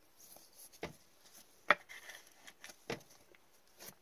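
Trading cards being handled on a table: faint rubbing and a few sharp taps as cards are shuffled and set down, the loudest tap a little under halfway through.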